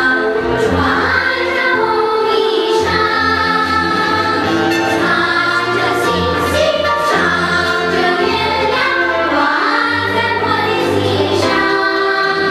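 Children's choir singing in chorus over an instrumental accompaniment with a low bass line.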